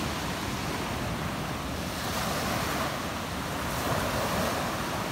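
Ocean surf breaking and washing up a sandy beach: a continuous rush of waves.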